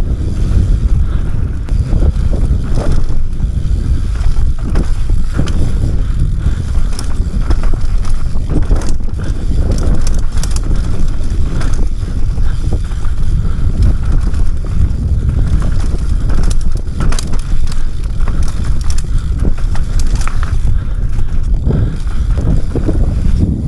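Wind buffeting a helmet-mounted action camera as a mountain bike descends a dirt trail at speed, with a continuous rumble from the tyres and frequent sharp knocks and rattles from the bike over the rough ground.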